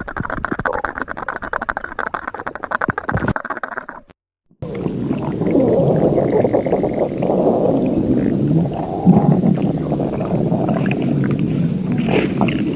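Stomach growling: a crackly gurgling for about four seconds, then, after a brief cut-out, a louder, continuous low rumble.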